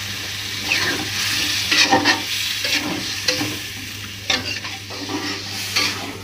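A metal spatula stirring and scraping in a metal wok of jengkol stew, the sauce sizzling over the gas flame after water has just been added. The scrapes come as repeated short strokes over a steady sizzle that grows quieter near the end.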